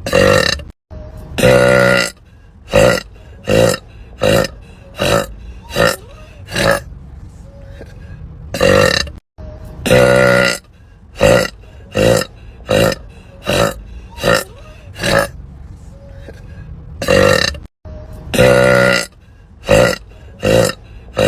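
Women burping again and again: a string of short quick burps with a few long, drawn-out pitched belches among them, about one every second. The same run of burps seems to repeat every eight or nine seconds, starting over after a brief cut.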